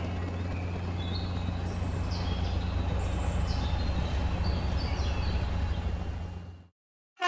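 Cartoon outdoor ambience: birds chirping in short high calls over a steady low hum, all cutting off abruptly near the end.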